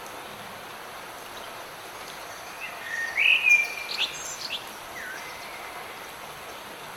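A songbird sings one short phrase of whistled, sliding notes about two and a half seconds in, over steady rain. A fainter single note follows near the five-second mark.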